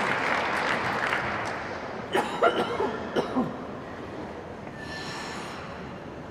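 Audience applause in an ice rink fading away over the first two seconds, then a few short calls from individual spectators about two to three seconds in.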